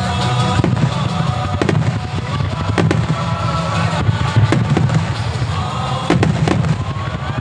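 Starmine fireworks display, with aerial shells bursting in repeated sharp bangs at irregular intervals over the show's music.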